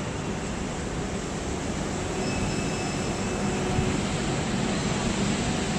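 Steady city street noise: an even low rumble and hiss, with faint thin high tones a little after two seconds in.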